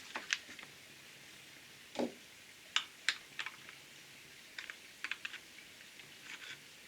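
Irregular light clicks and taps of the plastic jigsaw housing and small parts being handled as the tool is taken apart, with one duller knock about two seconds in.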